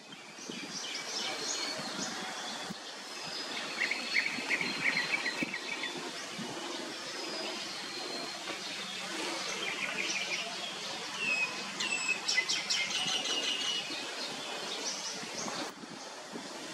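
Birds chirping and calling in a forest canopy, with quick series of high, rapid chirps about four seconds in and again around twelve seconds in, over a steady outdoor background hiss.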